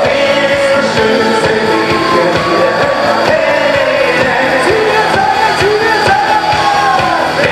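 Live band playing loudly with a singer, drums keeping a steady beat.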